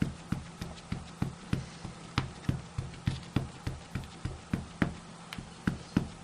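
A Versamark ink pad and a large photopolymer stamp tapped together over and over to ink the stamp fully, a steady run of light taps about three a second.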